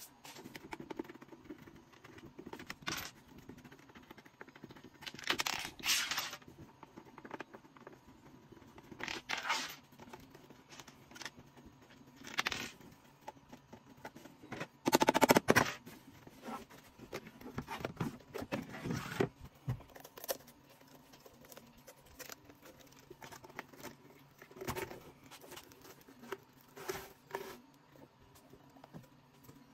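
Scattered handling noises of hands working a mask mould on a wooden bench: short tearing, scraping and crinkling sounds in irregular bursts, the loudest about halfway through.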